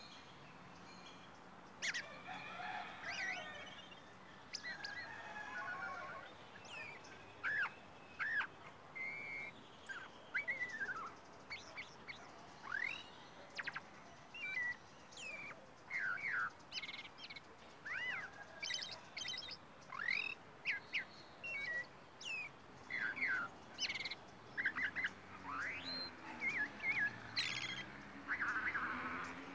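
Caged songbird singing: a long run of short, varied whistled phrases and chirps with quick rising and falling slurs, broken by brief pauses.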